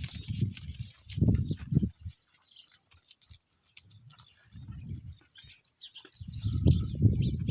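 Small birds chirping over farm goats, with short low bleats early on and a longer, louder quavering goat bleat starting about six seconds in.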